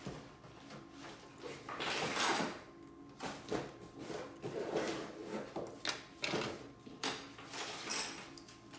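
Irregular clicks, knocks and scrapes of small hard objects being handled and set down, with a louder scraping rustle about two seconds in.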